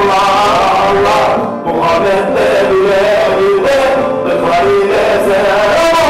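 A man singing a melodic Alevi hymn in long, gliding phrases as semah music, with instrumental accompaniment.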